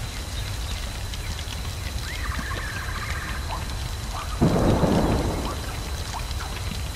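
Thunderstorm ambience: steady rain over a low rumble, with a sudden crack of thunder about four seconds in that lasts about a second.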